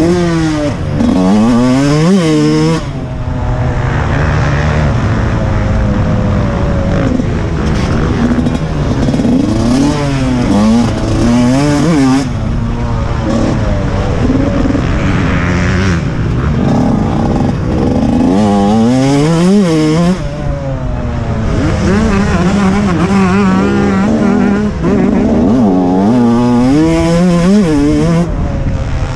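Two-stroke engine of a 2014 TM 125 MX motocross bike being ridden hard, its pitch climbing sharply through each gear and dropping back many times as the rider accelerates, shifts and backs off for turns, heard from the rider's helmet camera.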